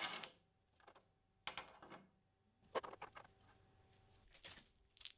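Machined steel toe clamps being set down one by one on a hard surface, giving a few short, light knocks about a second apart.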